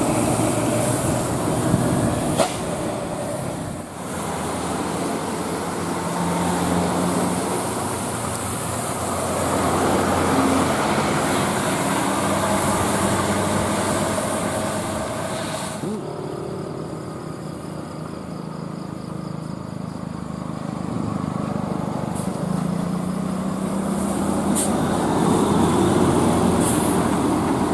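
Road traffic with large vehicles such as buses passing: engine and road noise, changing abruptly a few times as clips cut.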